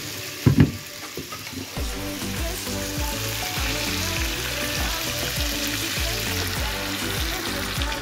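Chicken pieces frying in oil in a stainless steel pan, a steady sizzle, under background music with a steady beat. A short loud clunk about half a second in.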